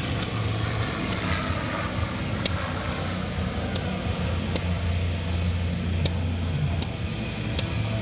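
Propeller engine of an MXS aerobatic plane heard at a distance, its pitch falling over the first couple of seconds, over a steady low hum. Irregular sharp pops from a nearby portable generator run throughout.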